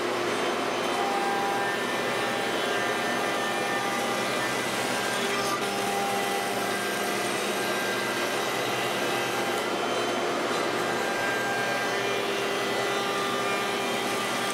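CNC router spindle with a wide surfacing bit planing wooden boards flat inside a dust-collection shoe. It makes a steady rushing noise with faint tones that shift every few seconds as the cut goes on.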